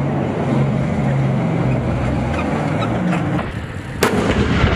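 Tank engine running with a steady low drone as the tank drives, then a sharp, loud bang about four seconds in.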